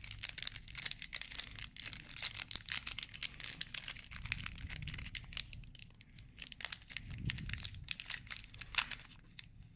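Foil wrapper of a Pokémon booster pack crinkling and tearing as it is worked open by hand, with many small crackles.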